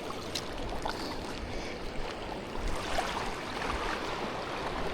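Steady wash of shallow water, an even hiss with a low rumble and a few faint ticks.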